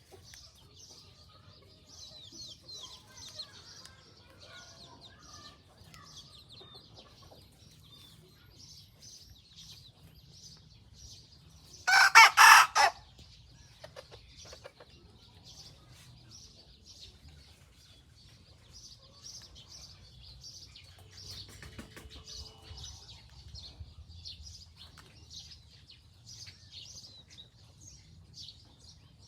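A young white decoy cockerel, still learning to crow, gives one short crow about twelve seconds in. Small birds chirp throughout.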